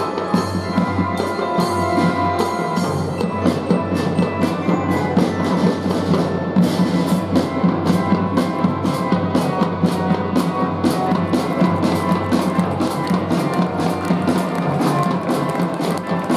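A children's fife-and-drum band playing, with a steady drum beat under the melody.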